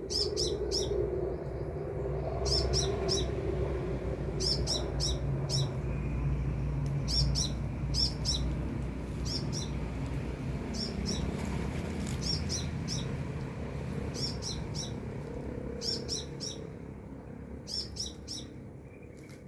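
Sunbird singing: quick clusters of three or four short, high, sharp notes, repeated every second or two, over a low steady background rumble.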